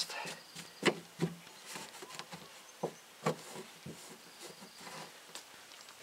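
A few scattered light knocks and handling noises, about four of them, spread over the first half.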